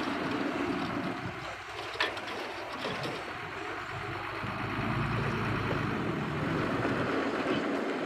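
Dump truck's diesel engine running as its tipper bed is raised to unload soil and rocks, swelling louder in the second half, with a sharp knock about two seconds in.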